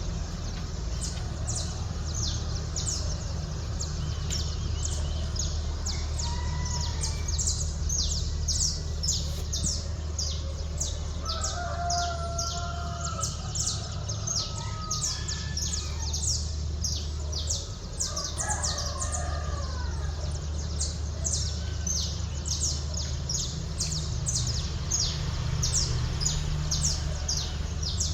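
Dawn chorus of small birds chirping rapidly and without pause, with a rooster crowing twice, about twelve and eighteen seconds in, over a steady low hum of the city.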